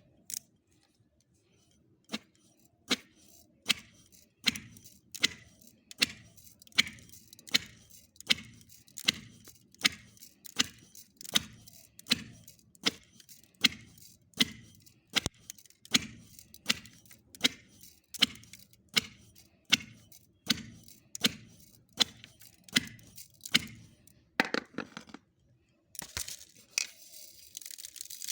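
Regular knocking strokes, a little under two a second, each a sharp click over a dull thump, stopping about three-quarters of the way through. Near the end a steady hiss begins.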